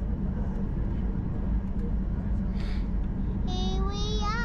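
Steady low rumble inside the cabin of a Boeing 737-800 taxiing after landing, its CFM56 engines at taxi power. About three and a half seconds in, a high, wavering voice rises over it.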